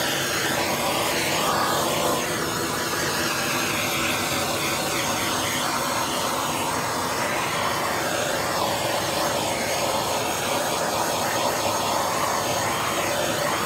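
Handheld gas blowtorch burning with the steady hiss of its open flame.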